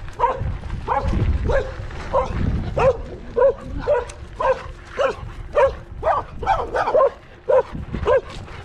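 Two dogs, one an Australian Shepherd, barking over and over as they chase a bicycle, about two barks a second. A low rumble runs under the barks for the first few seconds.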